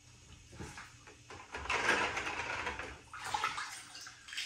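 A hand sloshing through a bucket of iodine sanitizer solution to fish out bottle caps. Water swishes and splashes, loudest for a second or two in the middle, with a few small clicks.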